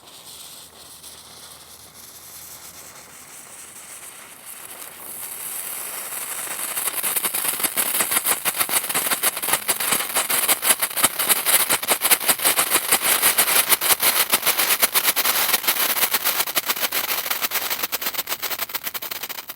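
Firework crackles: a soft hiss at first, building over several seconds into a dense, rapid stream of sharp crackling pops that cuts off suddenly at the end.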